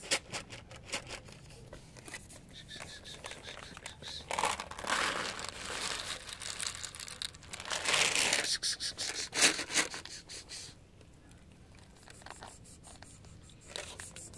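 Dry cat kibble rattling and being shaken out of a plastic bottle onto a stone step, in two loud rustling pours a few seconds apart, with clicks of pellets landing. Then quieter crunching as a cat eats the kibble.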